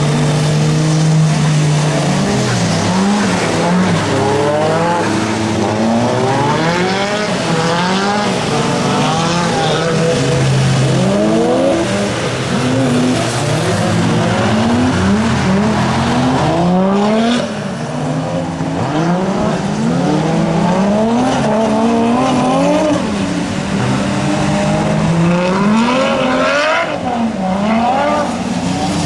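Car engines on a race circuit revving hard and dropping back over and over, the pitch climbing and falling about once a second, with tyre squeal over a steady noisy hiss.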